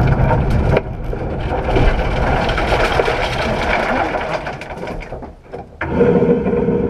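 Inside a Renault Clio rally car: the engine's loud drone drops away suddenly under a second in, leaving a dense crackling, rattling noise. Near the end a steadier engine note comes back briefly.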